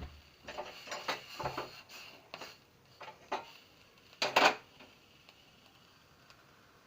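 Kitchen utensils being handled: a run of clinks, knocks and scrapes over the first four and a half seconds, the loudest knocks about four and a half seconds in.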